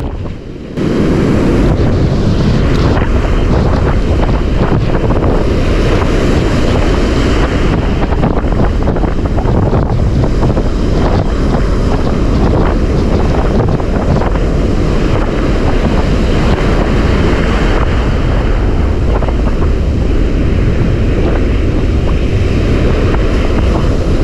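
Heavy wind buffeting the microphone over the wash of breaking surf: a loud, steady rumble that picks up about a second in.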